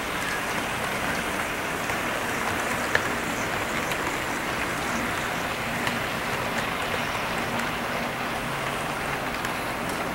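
HO scale model freight train rolling past: a steady whir and rattle of the wheels and motors on the track, with scattered small clicks and one sharper click about three seconds in.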